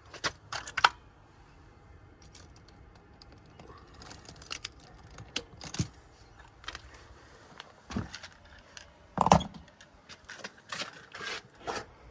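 Irregular clicks, taps and clatter of small hard objects being handled, with a louder knock about nine seconds in.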